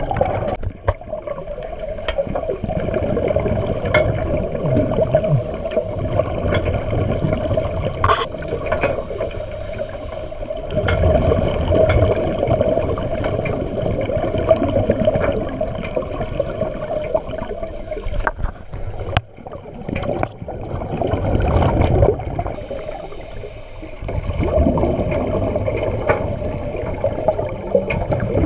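Muffled underwater sound heard through a GoPro's waterproof housing: surging water and divers' regulator bubbles over a steady hum, swelling louder and fading several times, with scattered light clicks.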